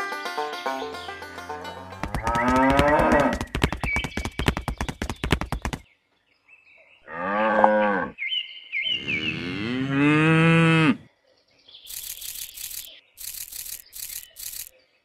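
Cows mooing: three moos, a long one about two seconds in, a short one, then another long one that rises and falls, coming in as banjo music ends. Near the end come a few short crunching sounds.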